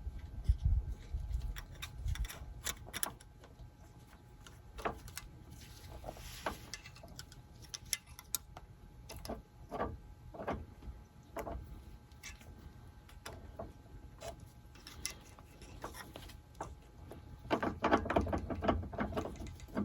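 Scattered small metal clicks and knocks as a greasy wheel bearing is worked out of its hub by hand, with a denser run of clinking and rattling near the end as the bearing comes loose.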